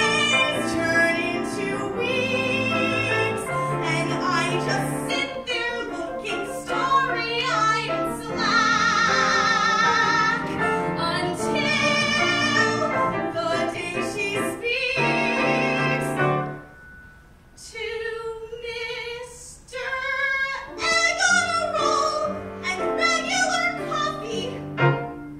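A woman singing a musical-theatre song into a microphone over low instrumental accompaniment, with vibrato on her held notes. The music drops much softer for a few seconds past the middle, then picks up again.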